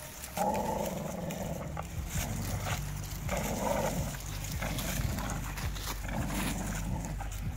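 American Bully growling through a mouthful of springpole rope as it tugs, in rough spells that come and go, the longest starting about half a second in and about three seconds in.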